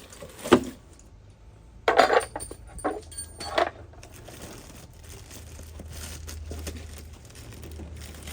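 A few sharp metallic knocks and clinks, like metal parts or tools being handled and set down, about half a second, two, three and three and a half seconds in, then a low steady hum.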